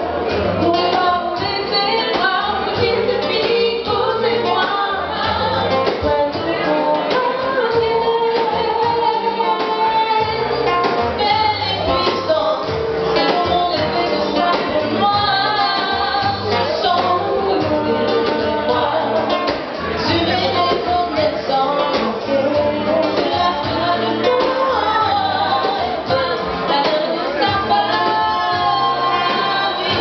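Two women singing live in harmony, with acoustic accompaniment of guitar and hand drums.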